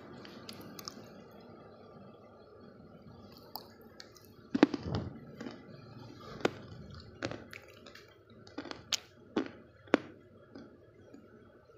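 Chunks of dry clay crunching and cracking. After a few quiet seconds, a string of separate sharp crunches begins about four seconds in, roughly one a second, and the first one is the loudest.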